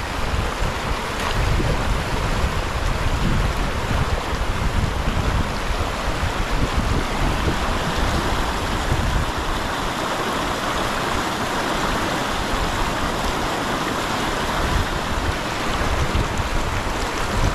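Fast, shallow river rushing over stones in a steady roar of water, with a gusty low rumble of wind buffeting the microphone.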